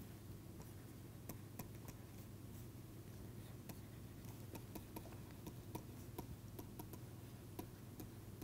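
Faint, irregular clicks and taps of a stylus writing on a pen tablet, over a steady low hum.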